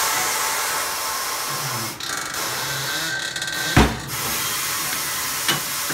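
Loud steady hiss that starts abruptly and cuts off just as suddenly, with a brief dip about two seconds in. A single thump sounds a little before four seconds in.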